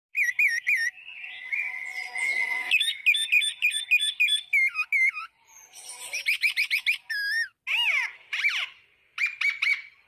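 A jamun (Java plum) leaf held between the lips and blown as a whistle to imitate birdsong. It gives a varied run of high warbling chirps, a held whistle, quick trills and downward-swooping notes, with a short break about five seconds in.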